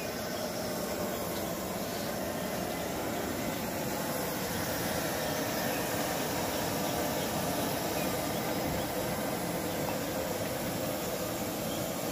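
Steady hissing roar of high-pressure gas burners under large cooking woks.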